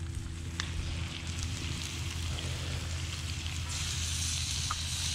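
Red rock cod fillets frying in bubbling fat in a cast-iron skillet over a wood fire: a steady sizzle with a few small pops, growing louder near the end. A steady low hum runs underneath.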